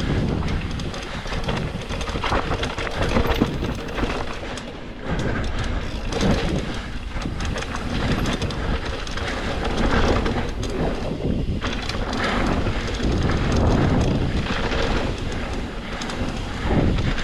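Mountain bike rolling over a rough trail: a continuous, uneven rattle of the bike and tires over dirt and rocks, with wind noise on the microphone.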